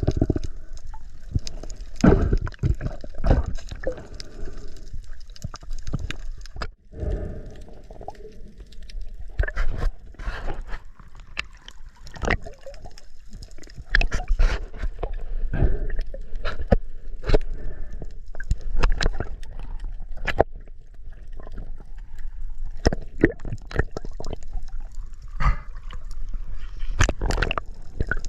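Sea water gurgling and sloshing around a GoPro camera, with irregular clicks and knocks throughout and a brief cut-out about seven seconds in.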